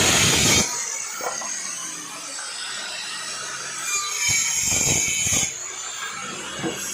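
Woodworking power tool cutting wood in passes: a loud pass ends about half a second in, the machine runs quieter, then it cuts again for about a second and a half near the middle.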